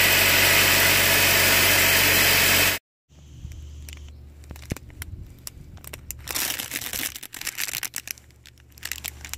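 Car engine idling, heard close up at the drive belt and A/C compressor pulley, a loud steady running noise that cuts off suddenly about three seconds in. Then a plastic bag of trim clips crinkles and rustles in gloved hands, with small clicks of the clips inside.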